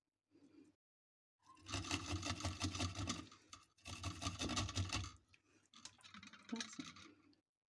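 Garlic cloves rubbed fast against a small metal hand grater: a rapid rasping scrape in three bursts, the last one fainter.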